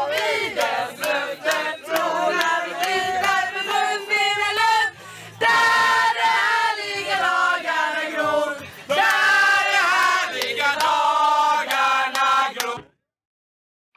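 A group of young men and women singing loudly together, with sharp knocks throughout. The singing stops suddenly about a second before the end.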